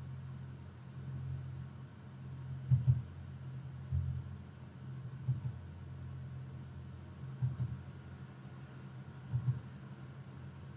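Computer mouse button clicked four times, about two seconds apart, each click a quick pair of sharp ticks. Under them runs a low steady hum.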